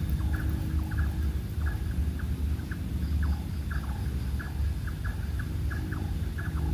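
Short, irregular animal calls, several a second, some falling in pitch, over a steady low rumble.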